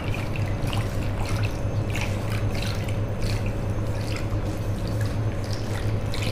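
Wooden hand churner (madhani) twirled back and forth between the palms in a bowl of milk, its blades whisking and splashing the liquid in quick, irregular strokes, over a steady low hum.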